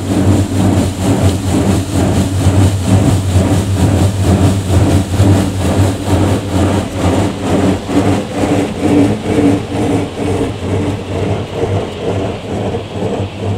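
High-pressure water jets of a touchless car-wash gantry spraying the car, heard from inside the cabin: a loud, dense hiss of water hitting the glass and bodywork over a steady low hum, pulsing about three times a second. It eases a little near the end.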